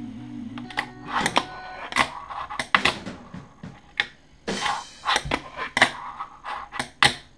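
Fingerboard tricks on a tabletop and a box ledge: a dozen or so irregular sharp clacks of the board's tail popping and landing, with short scrapes of the wheels rolling and grinding between them.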